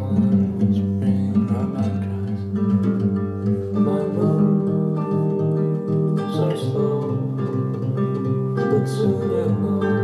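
Guitar-led music played through a pair of Glasshouse Speaker Kit No. 1 two-way bookshelf speakers, driven by an EL34 single-ended valve amplifier and heard through a microphone in the room.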